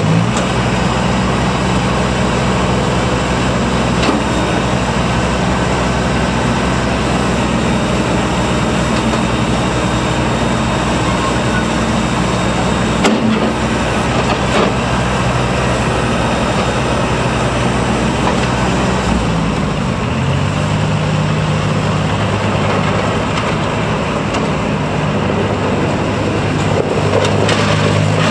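Massey Ferguson 1250 compact tractor's 34 hp Iseki diesel engine running steadily as the tractor is driven. The engine note steps up slightly about two-thirds of the way through.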